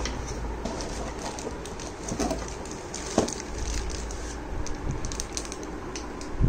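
Clear plastic wrap crinkling and a cardboard box rustling as a wrapped keyboard is handled in its box, with a few soft knocks, the loudest about three seconds in.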